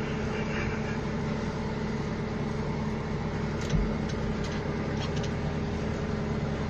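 An engine running steadily at an even hum, with one dull thump a little past halfway.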